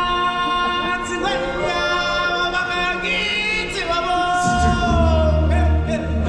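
Live stage-show music: singing voices hold long notes that slide up and down in pitch, and a deep bass comes back in about four and a half seconds in.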